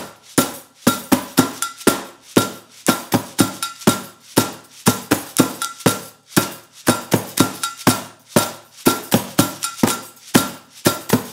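Homemade found-sound percussion ensemble playing two interlocking rhythms at once: hand-struck plastic-tub drum, clicking rhythm sticks, a plastic water-bottle shaker and makeshift triangle and tambourine. Sharp knocks fall several times a second in an even beat, with a short ringing tone on many of the strokes.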